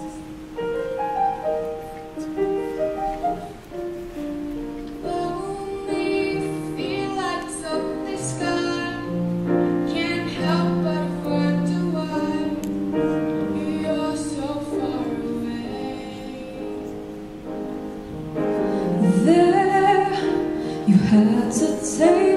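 Grand piano playing a slow accompaniment while young voices sing a slow melody; the singing gets louder and fuller near the end.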